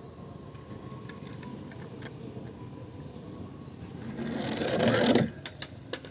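Toy fire truck rolling down a plastic playground slide: its wheels whir on the plastic, growing louder for about a second, then cut off suddenly, followed by a few light clicks.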